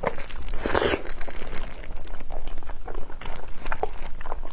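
Close-miked eating of braised pork knuckle: irregular wet bites and gnawing at the sticky skin and meat, the loudest bite about a second in.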